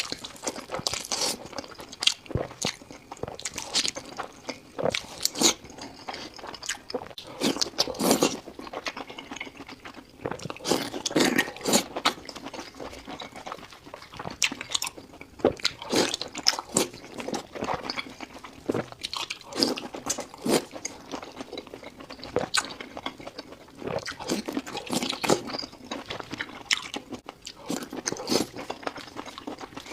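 Close-miked eating: a person biting and chewing food, with irregular sharp crunches and clicks several times a second.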